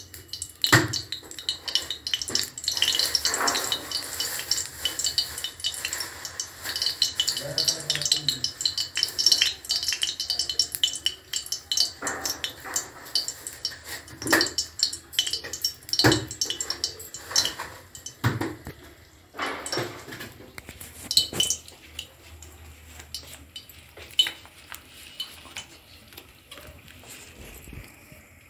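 Metal cookware and utensils clattering and clinking in irregular knocks, busiest over the first twenty seconds and then thinning out.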